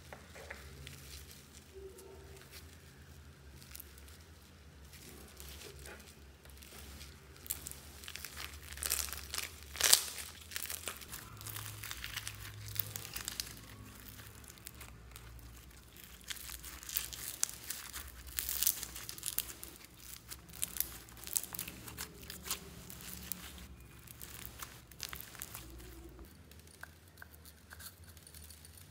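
Slime mixed with foam cubes being squished and kneaded by hand, with wet crackling and popping. The sound is soft at first, then gives many crackles and pops, the loudest about a third of the way in.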